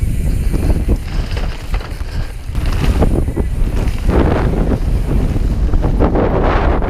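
Wind buffeting the microphone at speed, with the low rumble of a mountain bike descending rough, technical trail; the noise swells louder about four seconds in and again near the end.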